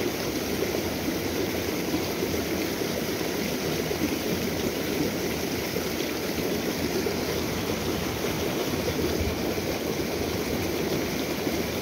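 Small stream running over rocks in shallow riffles: a steady, even rush of water.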